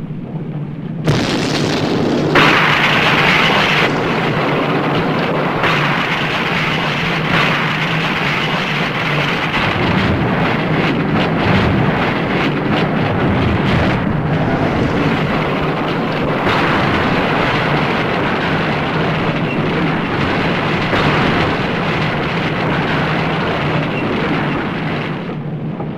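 Earthquake rumble: a loud, dense rumbling and crashing noise that starts suddenly about a second in and keeps going, over a steady low hum.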